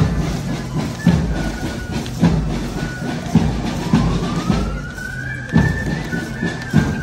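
Parade marching music with a bass drum beating steadily, about once a second. About four seconds in, a siren-like wail rises for a second and a half and then holds.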